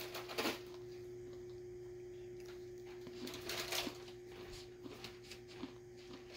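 Quiet room tone: a steady low hum, with a few faint rustles and soft ticks about half a second in and again a little past the middle.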